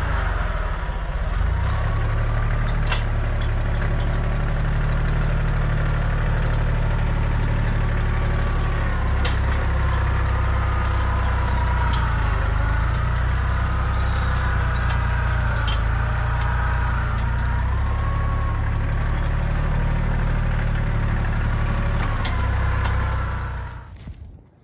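Kubota compact tractor's diesel engine running steadily as the tractor works through brush, its pitch wavering up and down, with a few sharp cracks. The engine sound stops near the end.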